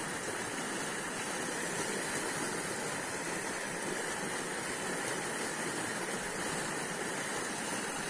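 Powerful flow of muddy water gushing from a full pipe outlet and churning into the creek: a steady, even rush of water. The flow is flushing accumulated silt out of the stream channel.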